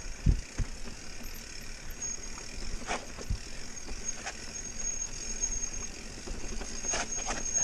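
Mountain bike rattling and knocking over rough trail, with a thin high squeal, typical of disc brakes, coming in about two seconds in and growing louder near the end.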